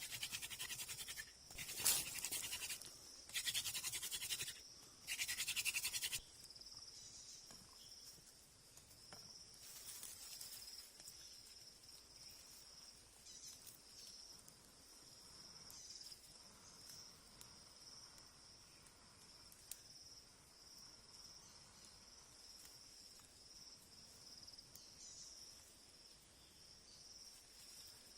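Several loud scraping bursts in the first six seconds, then insects chirring steadily at a high pitch for the rest.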